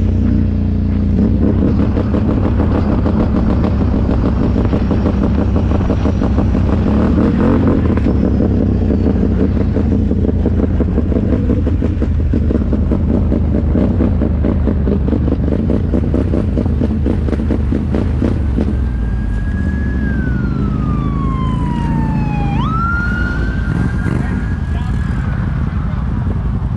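Can-Am ATV engine running steadily while riding. About two-thirds of the way in, a high whine rises above it: it holds, glides down, then jumps sharply back up and holds again.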